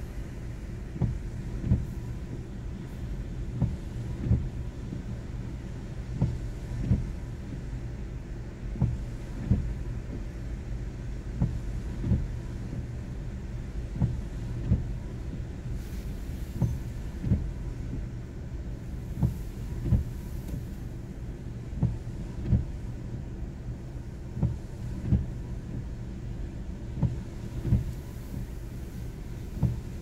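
Storm surf and wind heard muffled from inside a car: a steady low rumble with irregular dull thumps every second or two.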